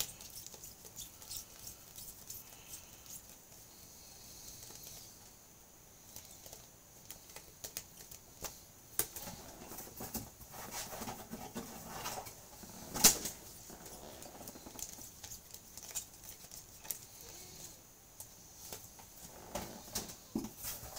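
Trading cards being handled and flipped through by hand while searching a stack: an irregular run of light flicks, taps and rustles, with one sharper knock about thirteen seconds in.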